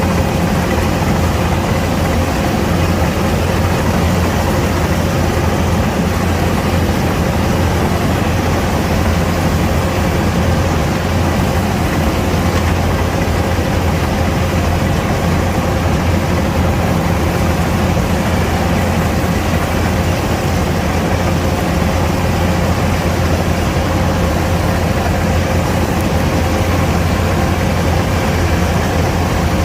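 Kubota DC-105X combine harvester's diesel engine running steadily: an even, unbroken drone with a faint steady whine above it.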